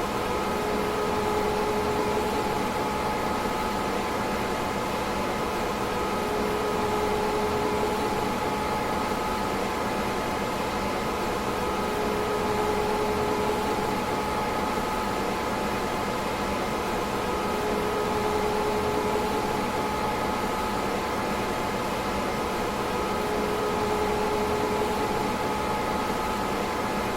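DEC PDP-11/44 minicomputer running steadily: a constant whirring hum of its cooling fans with a few fixed tones, and a lower tone that swells in for a second or so about every six seconds.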